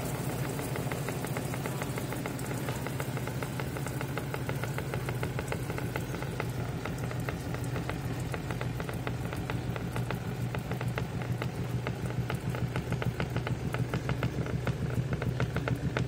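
Twin-tub washing machine's spin dryer spinning a load of bath towels: a steady motor hum with a rapid rhythmic knocking that grows stronger in the second half. This knocking is the sign of an unbalanced load, which the owner puts down to the towels being packed wrongly in the basket.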